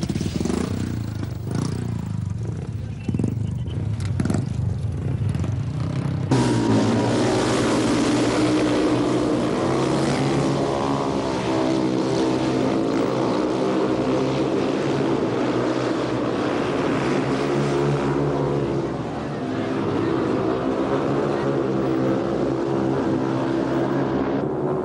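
Several speedway motorcycles' single-cylinder methanol engines running and revving together. About six seconds in, the sound turns suddenly louder and fuller, with several overlapping engine pitches wavering up and down.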